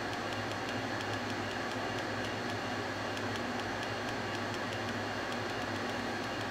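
Steady mechanical hum and hiss of a running motor or fan, unchanging throughout, with faint ticks a few times a second.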